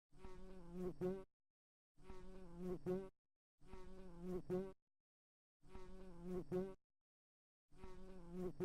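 Housefly buzzing in five short bursts of about a second each, separated by dead silence. Each buzz is a wavering drone that swells louder just before it cuts off.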